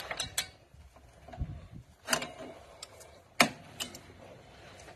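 A handful of sharp metallic clicks and snaps, the loudest about three and a half seconds in, from fitting the lower return spring between a drum brake's shoes.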